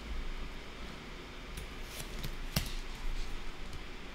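A few faint, scattered clicks over a quiet steady room hum, the sharpest about two and a half seconds in.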